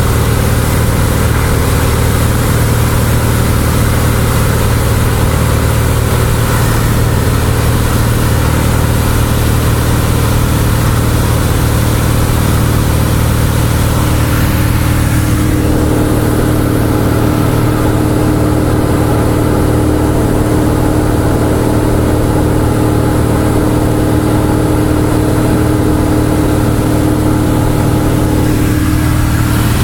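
Steady drone of a Cessna 172's piston engine and propeller in level flight, heard inside the cabin. About halfway through the high hiss drops away and a steady hum stands out more.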